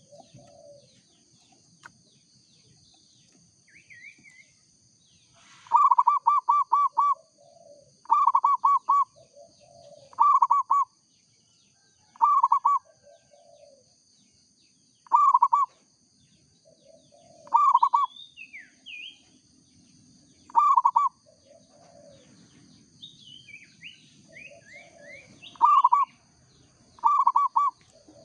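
Local zebra dove (perkutut) cooing: loud phrases of several quick rolling notes repeated every two to three seconds, starting about six seconds in, with softer lower coos between them. Other small birds chirp briefly near the middle and toward the end, over a steady high hiss.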